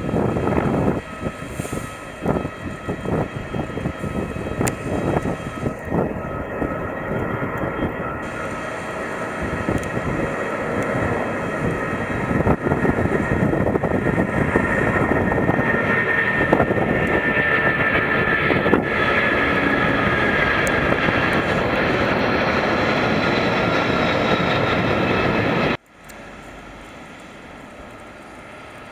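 British Airways Boeing 747-400 taking off, its four Rolls-Royce RB211 turbofans at takeoff thrust: loud, crackling jet noise with a whine that slowly falls in pitch as it climbs away. Near the end it cuts abruptly to fainter, steady jet noise from an airliner on the far runway.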